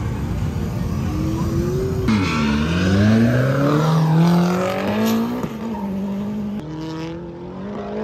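Drift car engine revving hard, its pitch dipping sharply about two seconds in and then climbing steadily, with tyre squeal.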